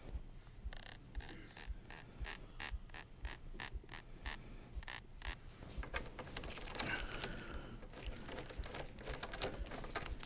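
Socket ratchet clicking in quick runs of small clicks, several a second, while a brake caliper mounting bolt is threaded in. Tool handling and rubbing noise in between.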